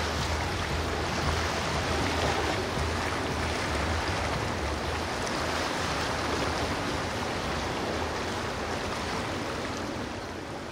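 Steady rush of waves and surf with a low rumble underneath, beginning to fade out near the end.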